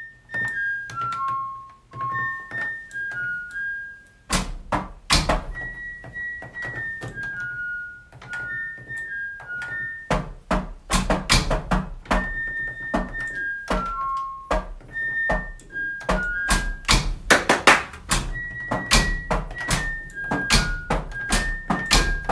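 An electronic beeping melody of single pure notes, like a washer or dryer's cycle-end tune, played in repeated phrases over a steady run of thumps and clicks.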